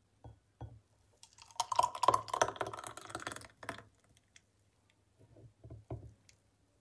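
Thick pulpy orange juice pouring from a plastic blender bowl into a glass: irregular splashing and clicking, densest from about a second in to nearly four seconds, then a few scattered taps.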